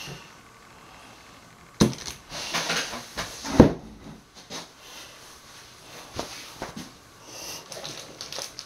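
Small bottles and containers being handled on a worktable: two sharp knocks, a couple of lighter clicks, and scraping and rustling between them.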